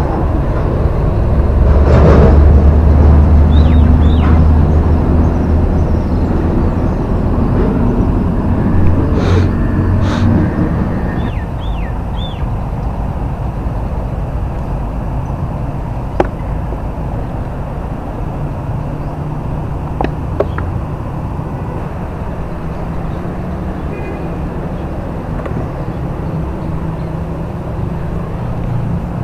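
A motor engine running with a steady low rumble, loudest for the first ten seconds or so and then quieter but still going. A few short bird chirps come through over it.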